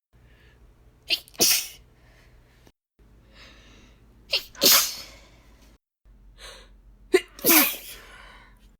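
Three sneezes from a woman in a hissy "ishh!" style, about three seconds apart, each a quick catch followed by a longer hissing burst. Softer breaths come between them.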